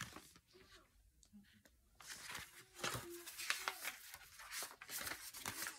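Pages of a paperback picture book being turned and handled: paper rustling and flapping, starting about two seconds in.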